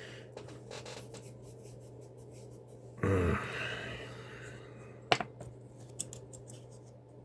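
Small metal clicks and scrapes of lock picks being worked in and out of an Evva 4KS dimple lock, with a short rasping scrape about three seconds in and a sharp click about five seconds in, over a steady low hum.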